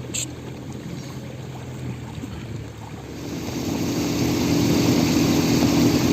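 An engine running steadily, growing louder from about three seconds in.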